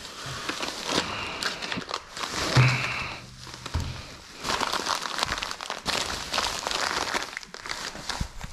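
Plastic bubble-wrap bag crinkling and crackling as it is pulled off and pushed aside by hand, with a brief low hum about two and a half seconds in.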